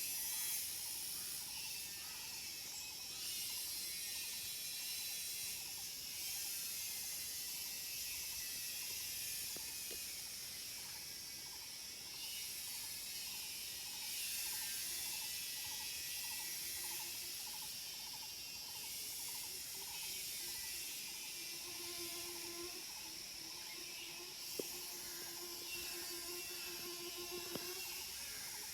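Forest cicadas shrilling in a steady high-pitched chorus. A pulsing call repeats a little over once a second through most of it, and a low steady buzz joins in during the second half.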